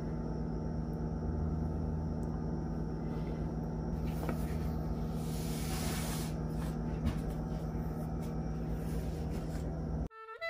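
Steady background hum and hiss with faint handling clicks; about five to six seconds in, a soft scraping as the pizza dough is slid onto a perforated metal pizza peel. The sound cuts out suddenly just before the end.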